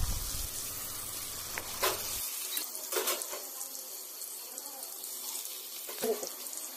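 Fuchka (puri) dough discs sizzling steadily as they deep-fry in hot oil in a kadai, with a few brief sharp clicks.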